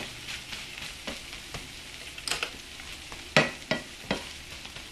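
Salmon and egg omelette sizzling in a coated frying pan while a slotted spatula scrapes and knocks against the pan as the wedges are turned. The sharpest knock comes a little past three seconds in.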